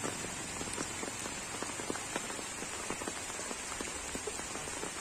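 Steady rain falling, with many separate drops striking close by over an even hiss.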